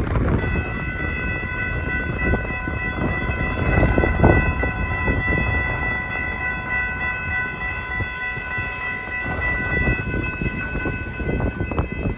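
Train horn held in one long, steady chord of several notes over a low rumble of train noise.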